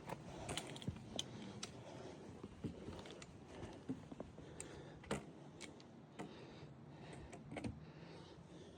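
Irregular light clicks and scuffs of a hiker's footsteps and gear jostling while climbing a steep trail, several sharp ticks spaced unevenly over a faint steady hiss.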